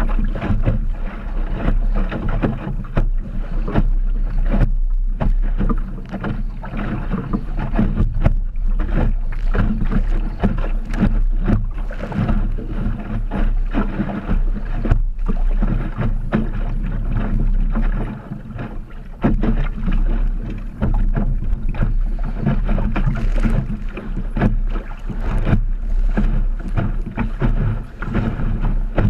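Wind buffeting the microphone on a small Optimist sailing dinghy, with water rushing and splashing against the hull as it sails through choppy water. The noise is loud and unsteady, with a constant low rumble and many small splashes and knocks.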